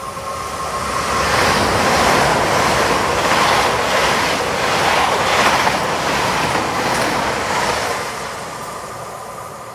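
Great Western Railway Intercity Express Train (Hitachi bi-mode multiple unit) passing close by at speed. The rush of wheels on rail swells about a second in, carries a regular beat of about two pulses a second as the coaches go by, and fades away near the end.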